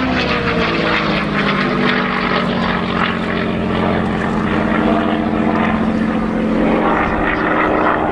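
Messerschmitt Bf109G-4's Daimler-Benz DB605 inverted V12 piston engine running at display power as the fighter flies past. The engine note falls in pitch over the first second and then holds roughly steady.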